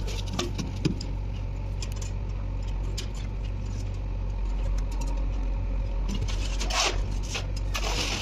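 Concrete-casting work: a steady low machine hum under scattered clinks and knocks of metal pans and shovels, with two longer scrapes of a shovel through wet concrete near the end.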